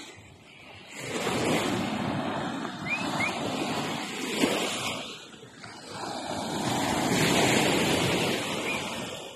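Surf: waves washing in and out in slow swells a few seconds apart, with a few faint short high chirps.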